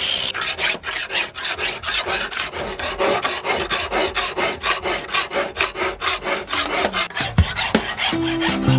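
Hand file scraping a steel cleaver blade in quick, even strokes, about four a second.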